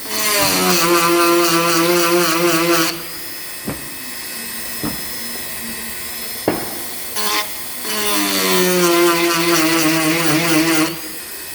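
Dremel rotary tool with a small cone-shaped grinding stone, filing chainsaw cutter teeth. It makes two grinding passes of about three seconds each, a whine that wavers in pitch as the stone bears on the tooth. A few light clicks come between the passes.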